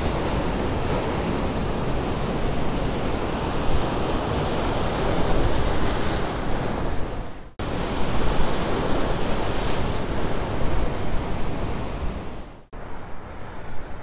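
Ocean surf washing and churning over shoreline rocks: a dense, steady rush of water. It breaks off sharply twice, and after the second break, near the end, it is quieter.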